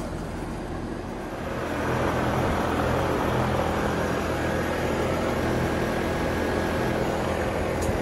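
Trane outdoor condensing unit running, its condenser fan blowing steadily over a low compressor hum. It gets louder about two seconds in, then holds.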